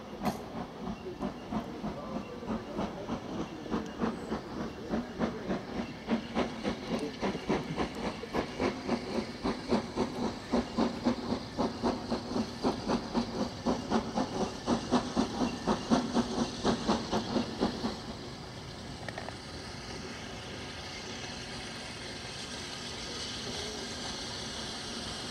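Steam locomotive approaching under power, its regular exhaust beats growing louder. The beats stop about eighteen seconds in as steam is shut off, leaving a steady hiss.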